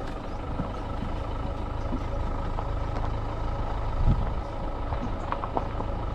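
Vehicle engine idling with a steady low hum, a short thump about four seconds in.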